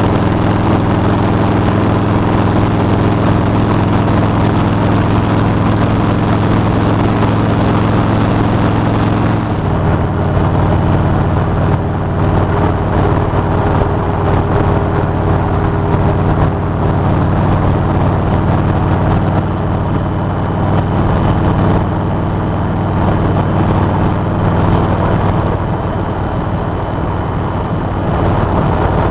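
Motorcycle engine running steadily while cruising on the highway, with a rush of wind and road noise. About nine and a half seconds in, the engine note drops slightly and then holds steady at the lower pitch.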